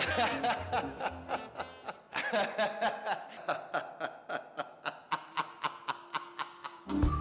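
A man laughing heartily in a long run of quick 'ha-ha' bursts, about four a second, over background music that stops about two seconds in.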